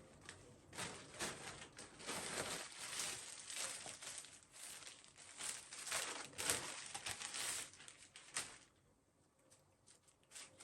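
Packaging being handled and opened: bursts of crinkling and rustling with some tearing, starting about a second in and stopping about eight seconds in.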